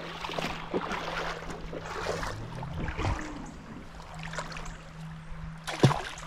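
Creek water splashing and sloshing in irregular bursts, over a steady low hum.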